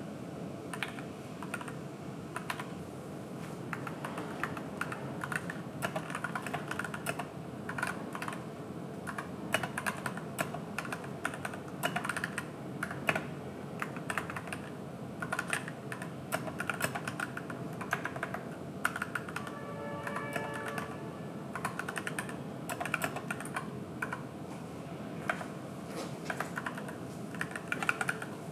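AKKO 3061S Tokyo R2 mechanical keyboard with yellow switches and PBT keycaps being typed on continuously: a fast, uneven stream of key clicks. About two-thirds of the way through, a brief ringing tone sounds behind the keystrokes.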